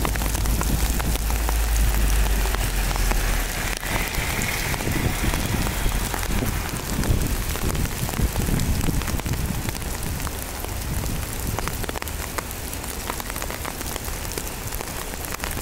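Heavy downpour mixed with small hail falling on wet asphalt: a steady hiss of rain scattered with many sharp little ticks of hailstones striking the ground. A low rumble runs under it for the first four seconds or so.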